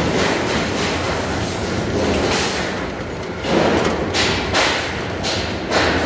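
Steel-cutting machine running: a steady noisy hiss and rumble, with a few heavy thumps about three and a half seconds in and again near the end.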